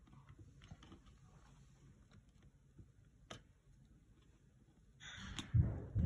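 Faint clicks and taps of a small hand tool working a ribbon-cable connector on a laptop motherboard, with one sharp click about three seconds in. Near the end there is a louder thump and rustle of handling.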